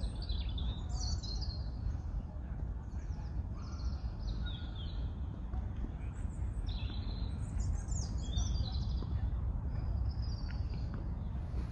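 Small songbirds singing in short phrases of high chirps, many falling in pitch, every second or two, over a steady low rumble.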